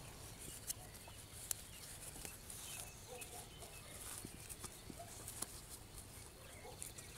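Faint crinkling and rustling of a thin PVA bait bag being folded and twisted by hand, with a few sharp clicks of the film.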